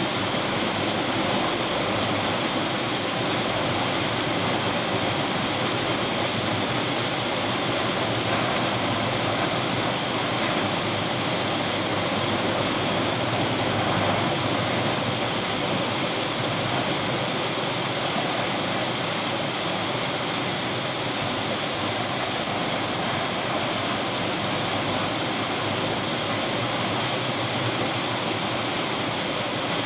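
Steady rushing noise of a tropical storm over rough sea, unbroken and even throughout.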